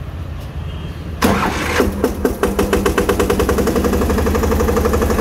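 Massey Ferguson 5118's 825 cc single-cylinder diesel engine starting about a second in, catching suddenly, then idling with a quick, even firing beat.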